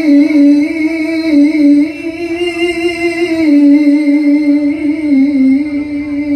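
A man's voice reciting the Qur'an in the melodic tilawah (qira'ah) style, holding one long ornamented note that wavers in small turns and steps down in pitch a few times.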